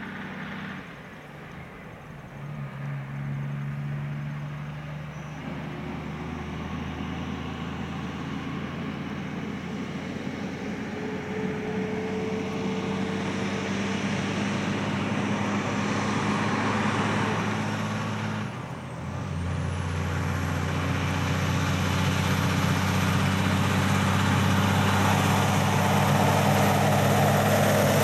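Diesel engine of a Kenworth logging truck, loaded with logs, pulling away and accelerating. The note dips briefly at a gear change about two-thirds of the way through, then pulls again, growing louder as the truck comes closer.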